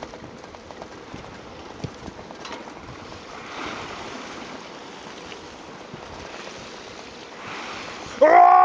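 Bicycle ride on a paved path: a steady rush of wind and tyre noise with a few small knocks and rattles. Near the end a loud, steady pitched tone starts abruptly.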